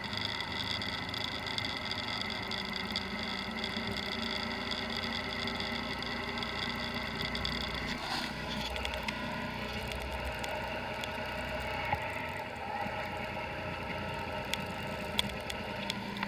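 Motorbike engine running steadily while riding at cruising speed, with road and wind noise; the engine note shifts about eight seconds in, and a few short clicks come near the end.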